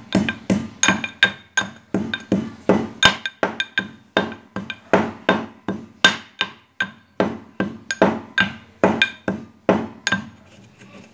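Metal pestle pounding almonds in a metal mortar: a steady run of ringing metallic strikes, about three a second, that stops shortly before the end.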